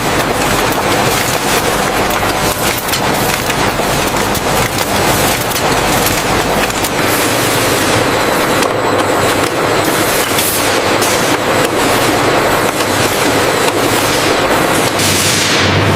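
Factory machinery running with a continuous dense clatter of rapid clicks and rattles over a steady hum.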